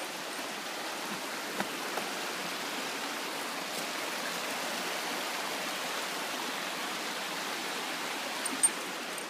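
Shallow rocky stream rushing steadily over stones and small cascades. A single sharp click sounds near the end.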